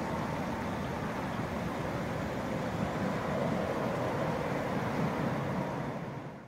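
Shallow river flowing over rocks: a steady rush of water that cuts off abruptly at the end.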